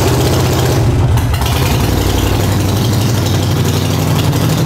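Harley-Davidson Sportster Forty-Eight's air-cooled V-twin idling, loud and steady, with a fast even pulse. The engine is still cold: it has not been warmed up after standing unused for a long time.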